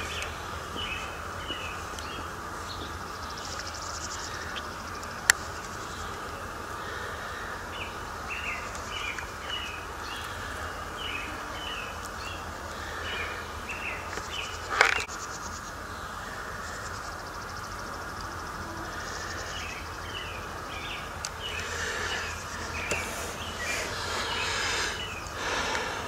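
Songbirds singing in short, repeated chirping phrases over a steady buzz of insects, with two sharp clicks, one about five seconds in and one near the middle.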